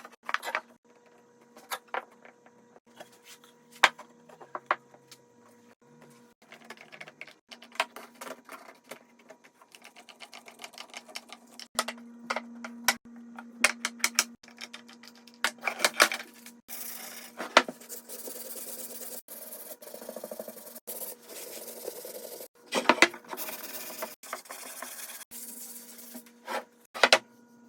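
Hand woodworking on a workpiece: scattered knocks and clicks of wood and tools being handled. About two-thirds of the way in comes a run of long rasping strokes on wood, a second or so each with short breaks between them.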